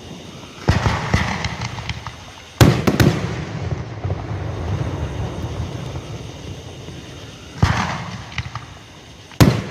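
Aerial fireworks shells bursting in a series of sharp booms, two close together about two and a half seconds in being the loudest, with crackling and rumbling between the bangs.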